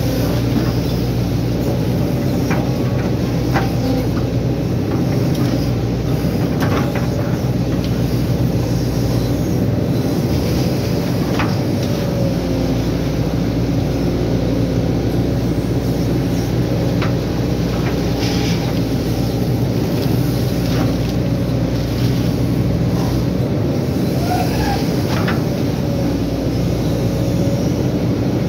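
Hydraulic excavator's diesel engine running steadily under load while digging, with a few scattered sharp clicks and knocks as the bucket works mud and rock.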